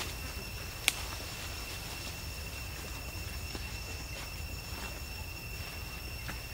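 Steady high-pitched insect drone, one unbroken tone with its overtone, over a low rumble. A single sharp click about a second in.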